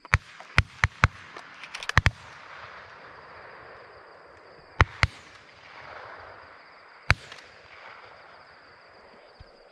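Shotgun shots from several hunters firing at a passing flock of magpie geese. About a dozen shots come in the first two seconds, some too close together for one gun. Two more follow about five seconds in and a last one about seven seconds in, each echoing briefly across the open floodplain.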